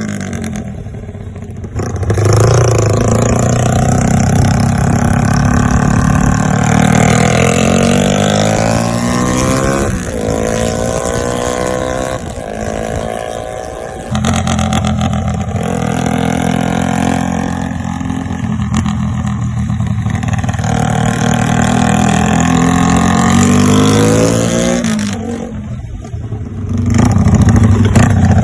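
Yamaha LC135 single-cylinder four-stroke moped engine breathing through an NLK exhaust, revving up and down again and again. It drops back briefly about a second in, near the middle and near the end.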